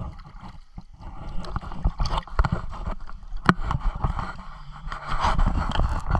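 Pool water sloshing and splashing right at a handheld GoPro in its waterproof case, held at the water's surface, with irregular sharp knocks as it is handled. The sloshing gets louder near the end.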